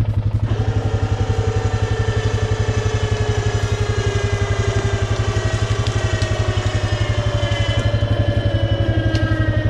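Four-wheeler's electric winch reeling in its line under load. The motor whine starts about half a second in and slowly falls in pitch as the line tightens. Underneath it the ATV's engine is idling steadily.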